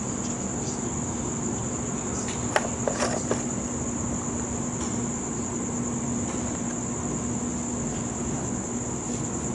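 Crickets chirping in a steady, high, unbroken trill over a low steady hum, with a few light clicks about three seconds in.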